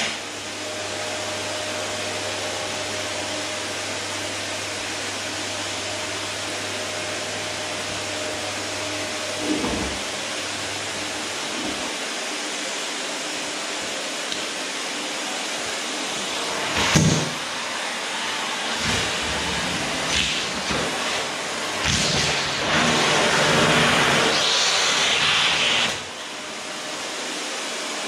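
Electrolux vacuum cleaner running steadily. A single knock comes about two-thirds of the way through, and a louder, hissier stretch follows shortly after, dropping back just before the end.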